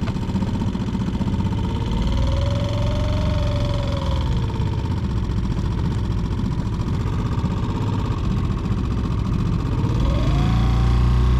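Small single-cylinder four-stroke outboard (Mercury F3.5, Tohatsu-built) running under way at low speed. Its pitch rises and falls back once near the middle. About ten seconds in it climbs again and holds louder.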